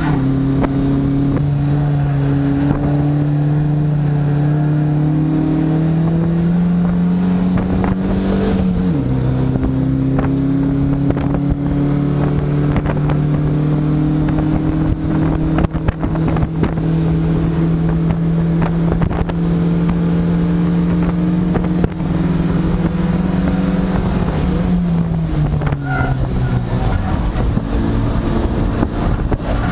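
Race car engine heard from inside the cockpit, running under load through the gears. The revs drop sharply at an upshift right at the start and again about nine seconds in, climb and hold fairly steady between, then fall away over the last few seconds.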